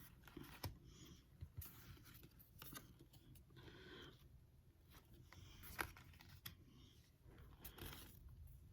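Trading cards and their packaging being handled, giving faint scattered swishes, rustles and light clicks, with one sharper click about six seconds in.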